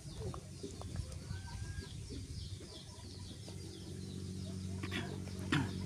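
Chickens clucking in the background, with a steady low hum coming in about halfway through and a short sharp sound near the end.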